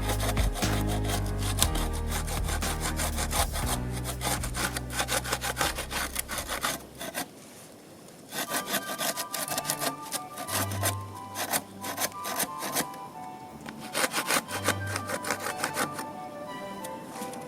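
Hand saw cutting wood in rapid repeated strokes, stopping for about a second partway through, over background music.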